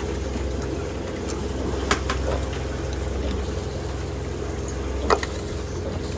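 Sailboat's inboard diesel engine running steadily under way, a constant low hum. A couple of short sharp clicks cut through it about two seconds and five seconds in.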